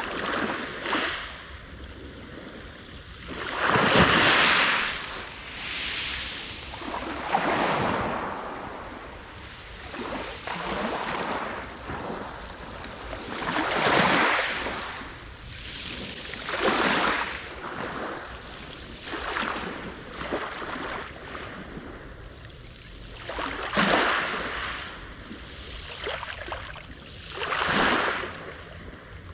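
Sea waves breaking on the shore, each one swelling into a loud wash and then fading, about every three to four seconds.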